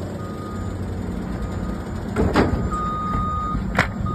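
Low, steady engine rumble of vehicles working at a dump, with a backup alarm beeping on and off. Sharp wooden knocks sound twice about halfway through and once near the end as pallets are moved on the stack.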